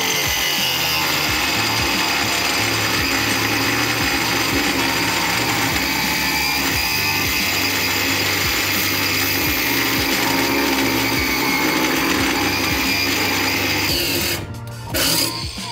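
Cordless angle grinder cutting through a welded bracket on a car's underbody bracing, a steady grinding that stops about a second before the end, over background music.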